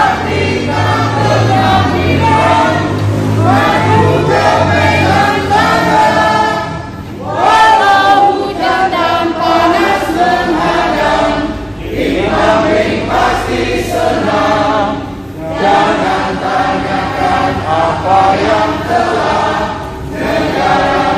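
A group of adults singing loudly together in unison, phrase after phrase, with short breaks between lines.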